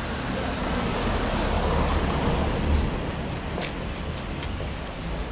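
Steady rushing outdoor noise with a deep rumble underneath, swelling about two to three seconds in and easing off toward the end, with a couple of faint ticks.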